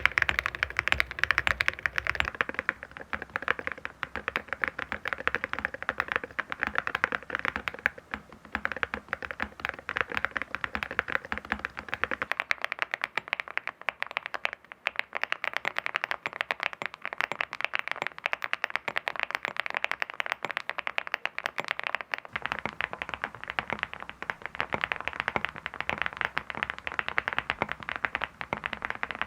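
Fast, continuous typing on a mechanical keyboard fitted with full-metal keycaps: a dense stream of key clacks with a hard, metallic edge, the low thock thinning out for a stretch in the middle.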